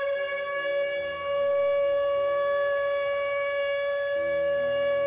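Outdoor civil-defence warning siren sounding a tsunami warning, holding one steady tone that grows louder about a second in.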